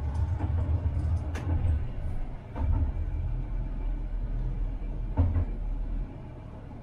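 Tram running along its track: a steady low rumble broken by a few sharp knocks. The rumble drops off near the end.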